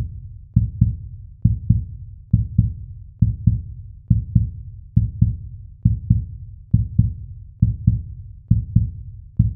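Heartbeat sound effect: pairs of low thumps, lub-dub, repeating steadily a little faster than once a second, each fading out before the next pair.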